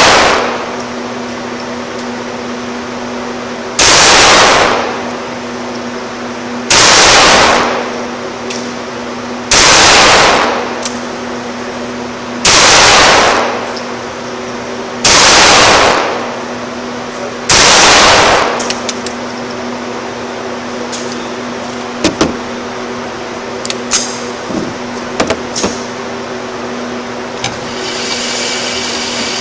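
ISSC M22 .22 LR semi-automatic pistol fired six times in slow, evenly spaced shots about three seconds apart, each shot overloading the recording. Afterwards, a few light clicks.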